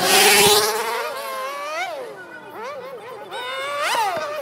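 A stunt motorcycle's engine revving up and down in repeated rising and falling sweeps, with rev peaks about two seconds in and again near the end. It opens with a loud rushing burst.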